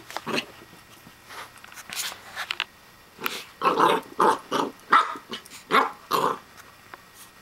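Pembroke Welsh Corgi puppy barking: a few scattered sounds at first, then a quick run of about eight short barks from about three seconds in.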